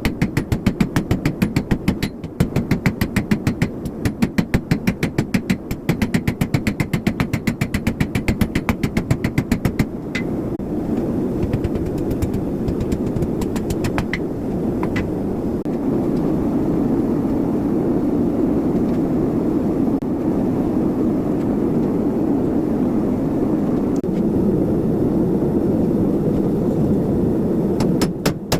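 Rapid, even hammer blows on steel, about five a second in runs with short pauses, while forging a hook. About ten seconds in the hammering stops and a steady low roar takes over, growing louder partway through, with an occasional single clank.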